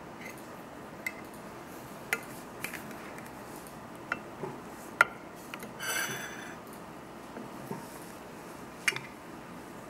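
Scattered sharp clinks and taps of a metal can and a spoon against ceramic dishes, about seven or eight, the loudest about five seconds in, with a short scraping rasp about six seconds in.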